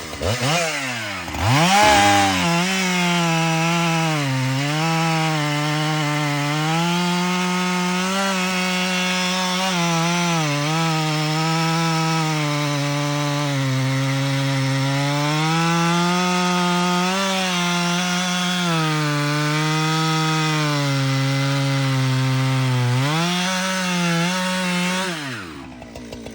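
Husqvarna 395XP 94cc two-stroke chainsaw with a 36-inch bar cutting through a cherry log at full throttle, its engine pitch sagging and recovering under the load of the cut. It revs up again as the cut finishes, then drops back to idle near the end.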